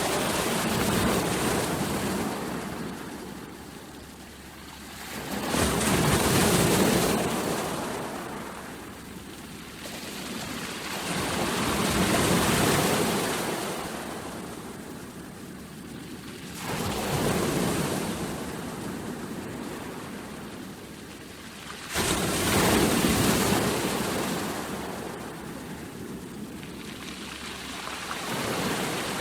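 Ocean waves breaking and washing on a shore, a surge of surf about every five to six seconds that swells and then fades, one wave breaking more suddenly about two-thirds of the way through.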